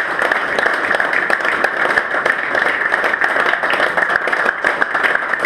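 A group of people applauding: a dense, steady patter of hand claps.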